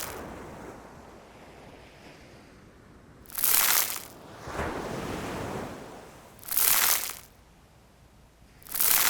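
Gritty scraping of sea sand being stirred into the scrub mixture, in short strokes about every three seconds, with softer rustling between them.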